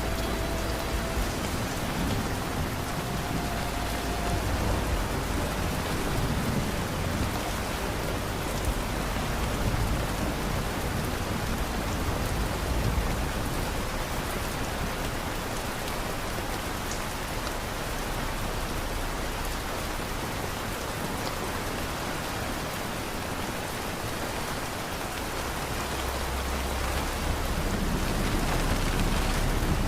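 Steady rain falling, an even hiss of drops, with a low rumble swelling near the end.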